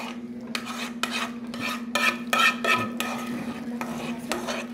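A utensil scraping and clinking against a dish in a quick series of short strokes, over a steady low hum.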